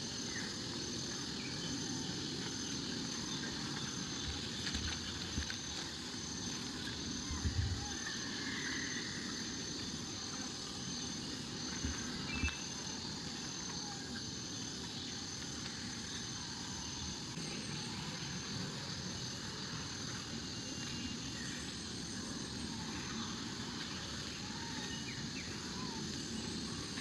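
Steady outdoor background noise with a thin, constant high tone, a few faint chirps, and several brief low thumps, the loudest about seven and a half seconds in and a pair around twelve seconds in.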